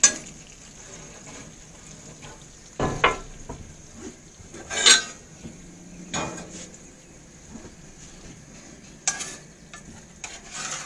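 Bluegill fillets and onions sizzling in butter in a pan, cooked until flaky, with a utensil scraping and knocking against the pan several times.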